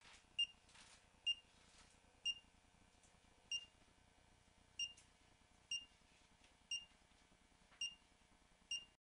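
Nine short, high-pitched electronic beeps from the G-Click gyro switch's control box, about one a second, each one signalling that the switch has been triggered.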